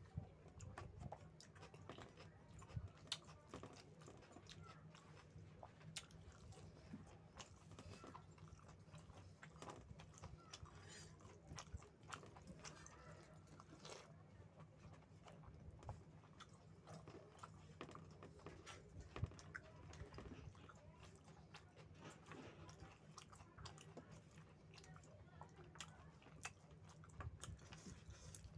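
A person chewing big mouthfuls of rice and chicken curry close to the microphone, quietly, with many small irregular clicks and crunches, over a steady low hum.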